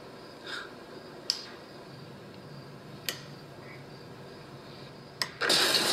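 A quiet, tense stretch with a few faint clicks, then about five seconds in a sudden loud burst of noise: a horror-style jump-scare sound effect.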